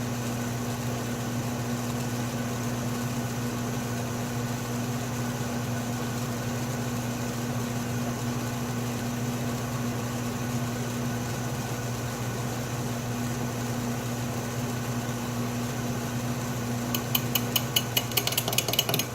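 Atlas metal lathe running with a steady electric-motor hum. Near the end comes a quick series of sharp ticks: the cutting tool being touched off against the spinning workpiece.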